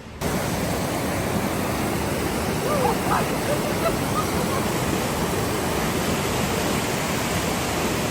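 Waterfall rushing: a loud, steady roar of falling water that starts abruptly.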